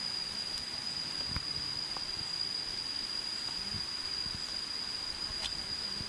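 Steady forest ambience: a constant high-pitched insect drone over an even hiss, with a few faint taps.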